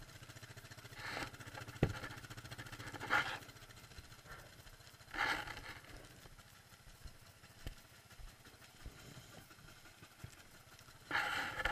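Quad (ATV) engine idling steadily. Over it come a few short bursts of scraping noise and a sharp knock about two seconds in.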